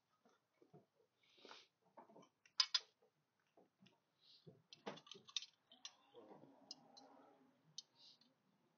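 Faint, irregular clicks and light knocks of small roof-rack mount parts (clamp, hook and screws) being handled and fitted together by hand, with a sharper click a little before 3 s and another near 5 s, and a soft rubbing stretch partway through.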